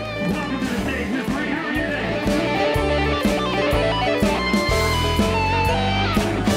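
Background music led by electric guitar, over a steady bass rhythm; it gets a little louder about two seconds in.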